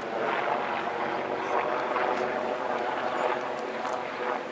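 A steady mechanical hum under an even outdoor hiss.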